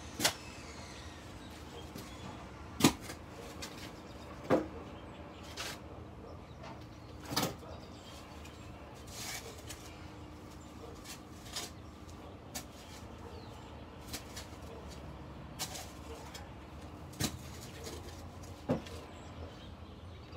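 Long-handled shovel digging into soil: sharp chops and scrapes of the blade, irregular, about one every second or two.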